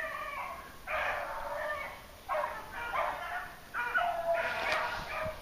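Beagles baying in a string of long, drawn-out calls, each about a second long. This is the hounds giving tongue as they run a rabbit's scent.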